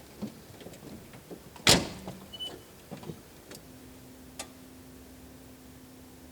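Small clicks and knocks around a Fiat Panda, with a car door slammed shut once just under two seconds in, the loudest sound. From about halfway a steady low hum sets in and holds.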